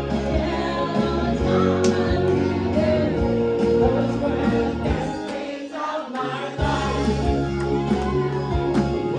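Live rock cover band playing with amplified singing over bass, drums, guitar and keyboard. The bass and drums drop out for about a second just past the middle, then come back in.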